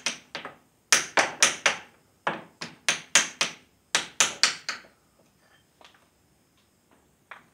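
Hammer blows on steel, driving back the retaining plate on the swing cylinder pins of a Case 580D backhoe: about a dozen sharp metallic strikes in quick runs of three to five. The blows stop about five seconds in, leaving a few faint taps.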